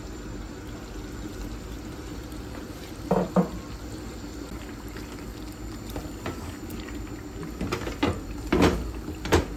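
Chicken curry simmering steadily in a metal pot on the stove, with a couple of knocks about three seconds in as citrus wedges go into the pot. Near the end a spatula stirs the pot, knocking several times against the metal.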